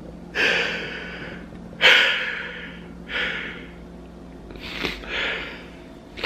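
A man crying, sobbing in ragged breaths about one every second or so, five in all, the loudest about two seconds in.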